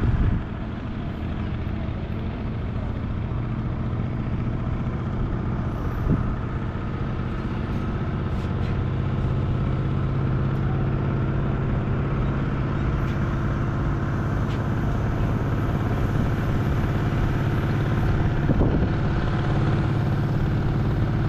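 Boat engine running steadily, a low even drone that grows a little stronger partway through. There is a brief bump near the start.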